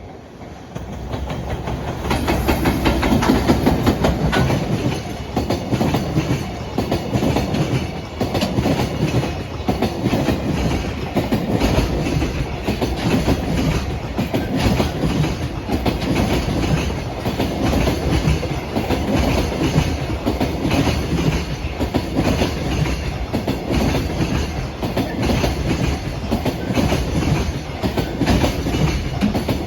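JR Freight EF210 electric locomotive hauling a long train of Koki container flat wagons passing close by. The rail noise builds over the first two seconds as the locomotive arrives, then holds loud and steady, with the wagons' wheels clicking in quick succession over the rail joints above a heavy rumble.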